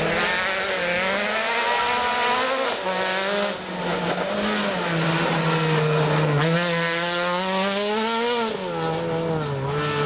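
Rally car engine running hard on a gravel stage, its pitch rising and falling with throttle and gear changes throughout.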